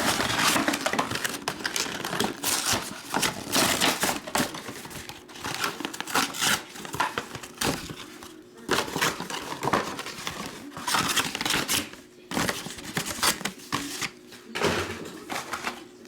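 Foil trading-card pack wrappers crinkling and tearing as packs are opened and the cards handled, in irregular bursts with short pauses.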